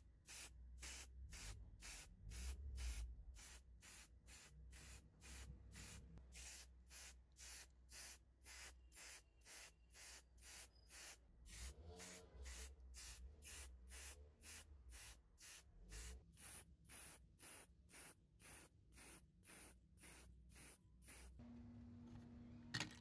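Aerosol spray-paint can hissing in short, regular puffs, about two a second, as a die-cast metal model car body is sprayed. The puffs stop about 21 seconds in, followed by a faint steady hum and a single sharp click near the end.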